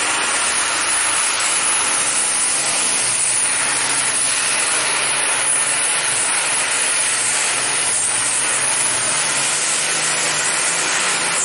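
Modified-class pulling tractor's big supercharged engine running at full power under load as it drags the weight sled, a loud, steady, continuous engine sound with a low hum that drifts slightly in pitch.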